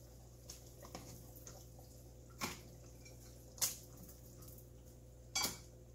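Metal tongs clinking and tapping against an enamelled cast-iron Dutch oven as short ribs are set back into the braising liquid: several sharp knocks spaced irregularly, a few faint ones in the first second and louder ones about two and a half, three and a half and five and a half seconds in.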